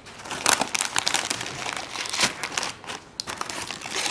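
A printed paper bakery wrapper crinkling and rustling as hands fold it open, in irregular sharp crackles that are loudest about half a second in and just after two seconds.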